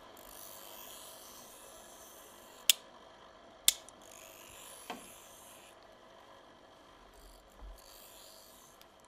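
Rasping, scraping handling of a small handheld object, with two sharp clicks about a second apart near the middle and a softer knock just after.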